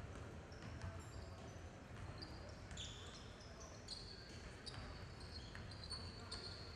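Faint ambience of a large indoor velodrome hall: a steady low rumble with scattered short, high-pitched squeaks.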